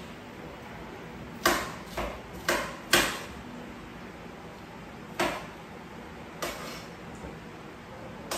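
Sharp knocks and clacks of kitchen utensils at a countertop during food preparation: four about half a second apart, then a few more spaced out.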